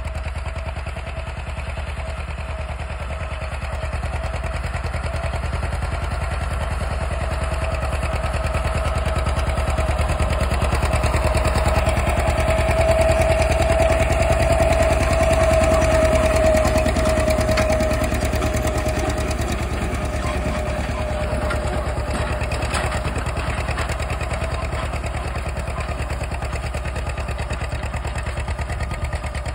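John Deere 620's two-cylinder engine pulling a 12-foot disc under load, its exhaust beating steadily. It grows louder as the tractor passes close about halfway through, then fades as it moves away.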